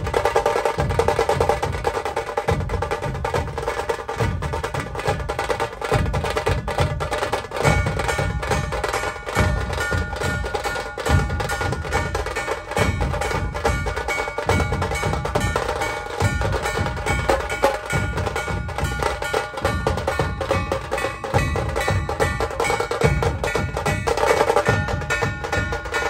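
Percussion-led music: fast, dense drumming with sharp clacking strokes and heavier low beats, over a few held steady tones.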